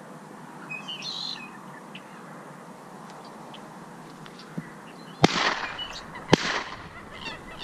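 Two shotgun shots about a second apart, sharp loud reports each trailing off briefly.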